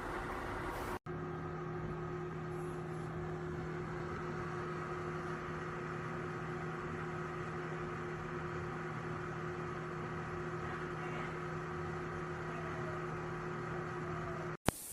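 Simplus 2.5 L dehumidifier running with a steady, even hum. The sound cuts out for an instant about a second in and again near the end.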